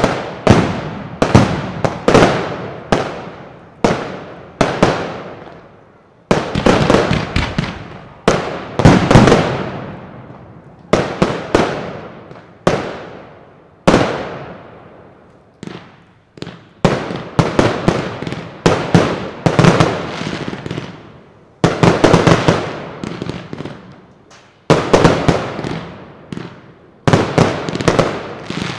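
Professional aerial firework shells bursting in quick succession: a long run of loud, sharp bangs, often several within a second, each trailing off before the next, with a few short lulls between volleys.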